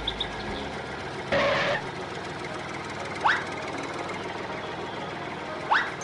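Cartoon tractor engine sound effect running steadily, with a short hiss about a second and a half in and two quick rising sweeps, one near the middle and one near the end.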